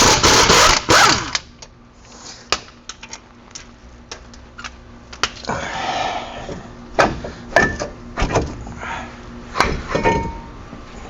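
Tools and steel brake parts knocking and clinking as the brake caliper and caliper bracket come off a pickup's front wheel hub. It opens with a loud, harsh burst lasting about a second, followed by scattered sharp knocks and clicks.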